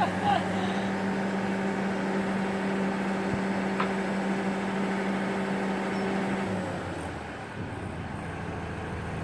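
An engine running steadily with a constant hum. About two-thirds of the way through the hum drops away and a quieter, lower running continues.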